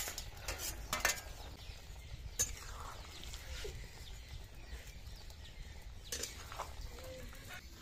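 Steel plate and spoon clinking against a metal kadai as fried fish pieces are tipped into simmering curry: several separate sharp clinks, the loudest about a second in.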